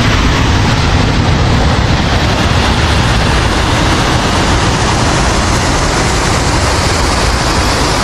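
Waterfall and river rushing, a loud, steady noise with a deep rumble underneath.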